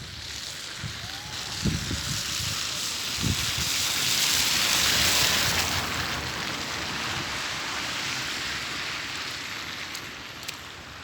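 Winter storm wind gusting: a rushing hiss that builds to a peak about four to five seconds in and then slowly dies away, with a couple of low buffets of wind on the microphone in the first few seconds.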